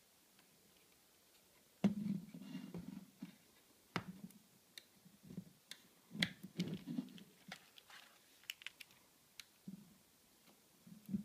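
Hands working on a satellite receiver's sheet-metal case with a screwdriver: irregular clicks, taps and scraping, with sharp knocks about 2, 4 and 6 seconds in.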